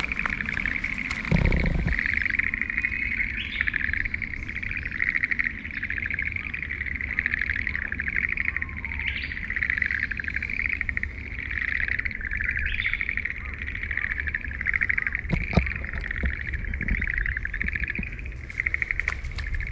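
Steady chorus of rapid pulsing trills from many small calling animals, swelling and fading in waves, over a low rumble. There is a thump about a second in.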